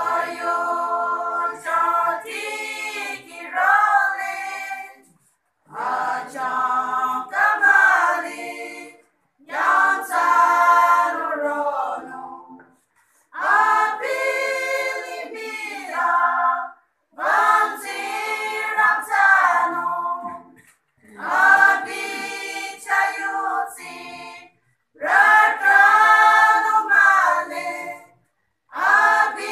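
Women's choir singing unaccompanied, in sung phrases of three to four seconds separated by brief pauses for breath.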